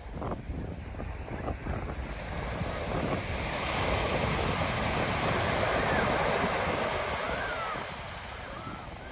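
Ocean surf: a wave breaks and washes up the beach, swelling to a peak in the middle and easing off near the end, with wind rumbling on the microphone throughout.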